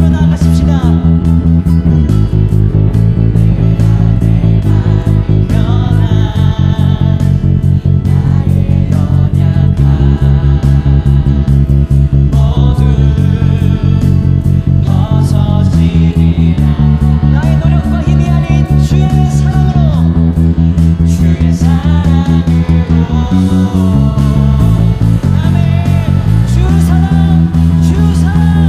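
A band playing a worship song, mixed with the bass guitar boosted so its bass line sits loud and low under the guitars, over a steady beat.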